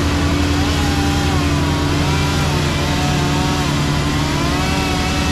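A large engine running steadily, with a higher engine tone that wavers slowly up and down over it.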